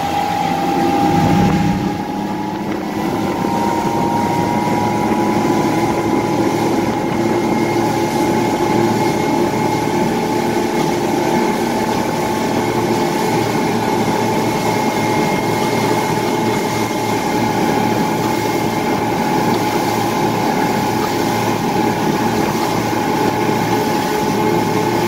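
Twin Honda 225 four-stroke V6 outboard motors pushing a power catamaran at cruising speed. The engine note rises over the first few seconds as the boat speeds up, then holds steady.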